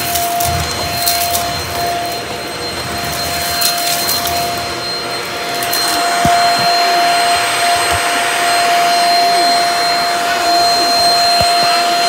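Bissell cordless stick vacuum running at a steady pitch with a constant whine as it is pushed over a hard wood floor, picking up debris. A few brief clicks and knocks come through over the motor.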